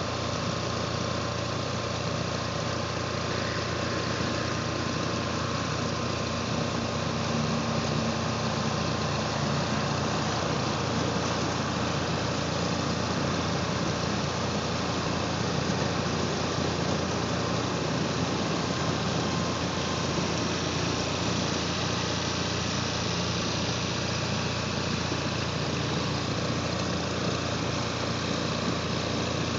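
A small boat's motor running steadily: a constant engine drone that does not rise or fall.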